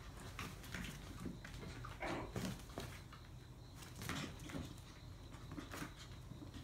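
Maltese puppies giving a few short play barks while they romp and wrestle, the loudest about two and four seconds in.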